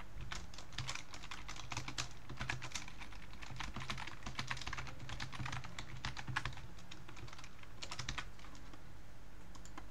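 Typing on a computer keyboard in quick runs of keystrokes, with a pause about six and a half seconds in, one more short run, then the keys go quiet near the end.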